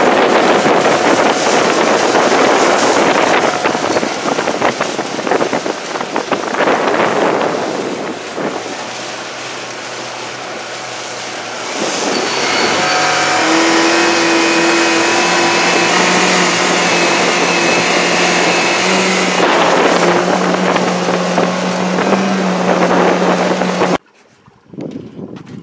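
A boat's outboard motor running at a steady speed, with wind and water noise heavy in the first half; the engine tone steps up slightly about two-thirds of the way in, and the sound cuts off suddenly near the end.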